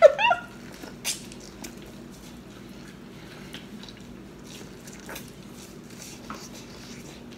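Biting and eating a sauce-covered corn cob: scattered soft wet clicks and smacks of teeth and lips on the kernels. A brief vocal sound comes right at the start.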